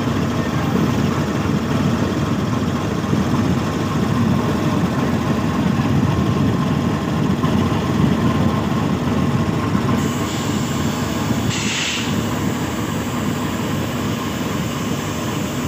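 GEU-40 diesel-electric locomotive idling at a standstill, a steady low engine rumble, with a brief hiss about twelve seconds in.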